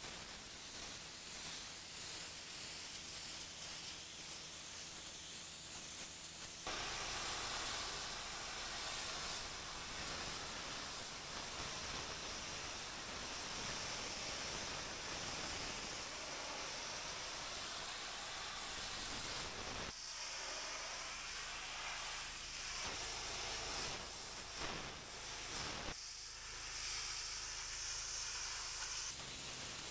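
Pressure-washer lance jet spraying onto wet Indian sandstone patio slabs, a steady hiss of high-pressure water stripping off slimy grime. The hiss changes abruptly a few times.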